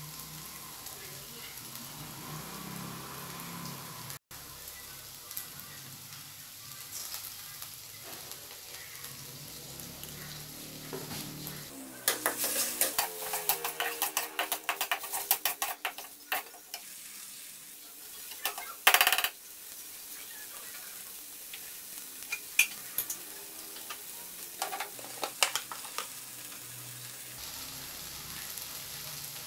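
Diced meat and chopped aromatics sizzling in oil in a metal wok over a gas flame. A metal spatula scrapes and clinks against the wok as the food is stirred, busiest from about the middle on, with one loud clack a little later.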